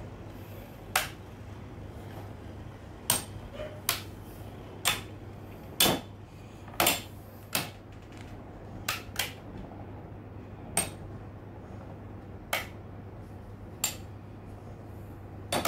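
Infinity Nado battle tops clashing in a battle stadium: about a dozen sharp hard clacks at irregular intervals, one to two seconds apart, as the two spinning tops strike each other.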